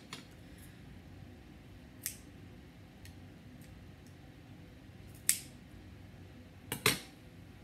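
Scissors snipping yarn: single short snips about two and five seconds in, then a quick double snip near the end, with quiet handling in between.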